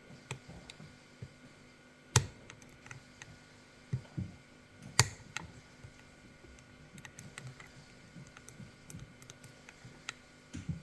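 Lock picks and tension tool working in an Izis pump lock: scattered small clicks and taps, with two sharper clicks about two and five seconds in.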